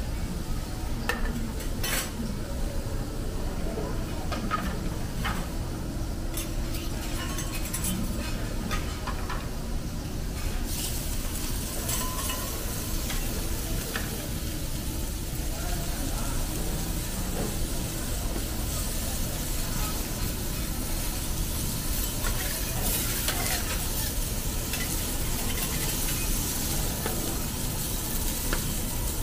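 Meat sizzling on a steel teppanyaki griddle, the hiss growing fuller about a third of the way in as a lamb chop and a slice of beef go onto the hot plate, with clinks and taps of metal spatulas on the griddle.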